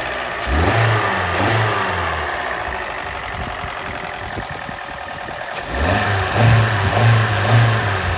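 Hyundai Elantra's 2.0-litre four-cylinder engine idling, then revved in two bursts of short throttle blips, about half a second in and again near six seconds. The engine sounds a little strange after heavy oil sludge.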